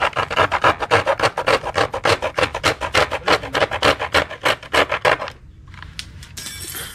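Hand filing in quick, even back-and-forth strokes, about five a second, stopping about five seconds in.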